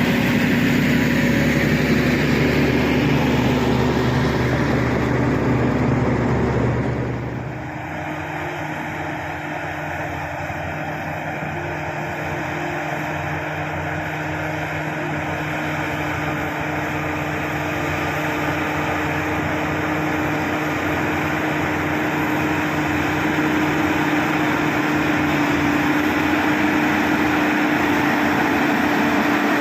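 SD16 crawler bulldozer's diesel engine running under load. About a quarter of the way in the sound changes suddenly to a quieter, steadier engine note, which then slowly grows louder.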